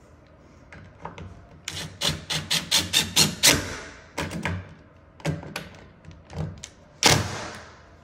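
Cordless driver tightening a door-hinge screw into a wall anchor in the jamb: a rapid run of sharp clacks, then several single clacks as the screw is snugged up. A single louder thunk comes near the end.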